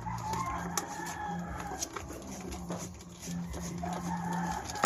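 A rooster crowing twice: one call at the start and another beginning near the end. Under it are small clicks of wires being handled, with a sharp click near the end.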